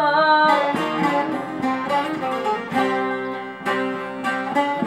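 Bağlama (saz) played solo, a run of quickly plucked melody notes with no voice: an instrumental passage of a Turkish folk song.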